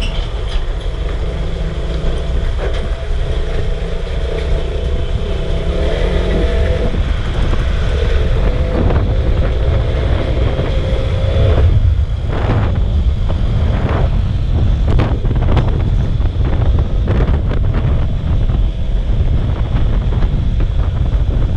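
Motorcycle on the move, heard through a microphone covered for waterproofing: a heavy, muffled low rumble over the engine's drone. About halfway through the engine note fades and a run of irregular sharp knocks sets in.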